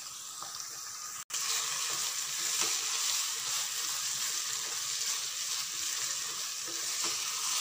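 Minced beef sizzling in hot ghee with a dollop of yogurt, frying steadily in a nonstick wok while a plastic spatula stirs and turns it. The sizzle cuts out for an instant about a second in, then comes back a little louder.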